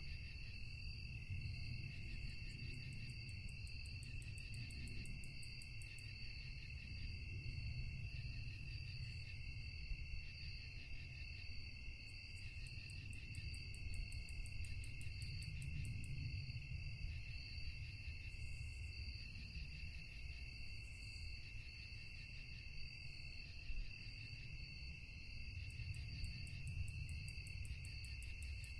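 Crickets chirping in a dense chorus: steady high trills throughout, joined now and then by a faster, higher pulsing chirp that runs for a few seconds and stops, over a low rumble.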